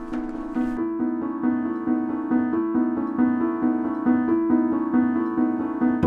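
Background music: a piano playing a steady, evenly paced pattern of alternating notes.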